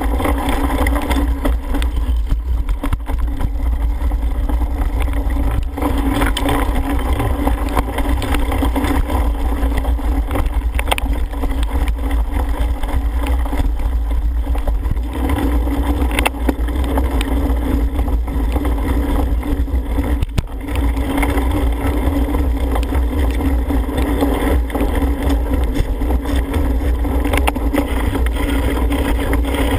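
Wind buffeting a helmet-mounted camera's microphone as a cyclocross bike is ridden at race speed: a loud, steady rumble, with brief knocks from the bike over rough ground.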